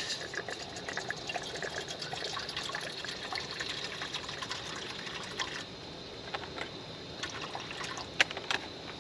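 Water trickling from a canteen into a small pot, filling it to boil for coffee; the pouring stops about five and a half seconds in. A couple of sharp clicks near the end.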